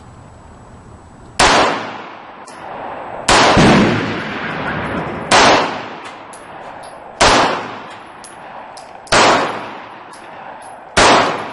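A 9mm Norinco semi-automatic pistol firing six single shots about two seconds apart, each sharp crack followed by a fading echo.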